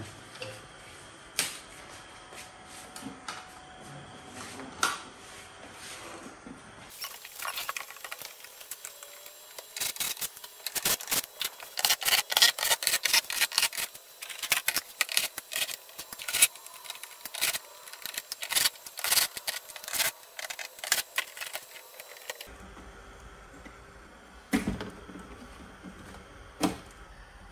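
A cordless drill-driver backs the screws out of a TCL LED TV's plastic back cover, with rapid clicking and rattling of screws and plastic. Scattered clicks and knocks come first. The dense clicking starts after several seconds and cuts off abruptly, and a few knocks follow near the end.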